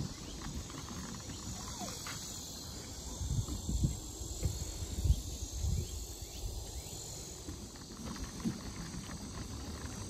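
Steady, high-pitched chorus of insects. Irregular low thumps and rumbles on the microphone are loudest about halfway through.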